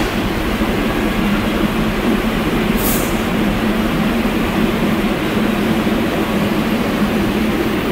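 Steady rumble and low hum of an R142A subway train standing at an underground platform, with a brief high hiss about three seconds in.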